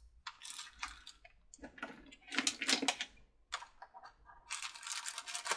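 Small plastic bags of LEDs crinkling and small parts clicking as the LEDs are taken out and handled one by one, in several short bursts.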